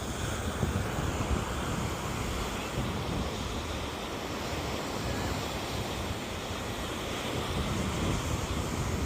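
Wind buffeting the microphone: a steady, low rushing noise that swells and eases slightly, with no distinct events.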